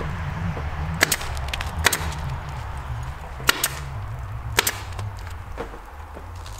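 Pneumatic nail gun firing nails into wood framing: about five sharp shots at uneven intervals, two of them in quick succession about two-thirds of the way through, over a low steady rumble.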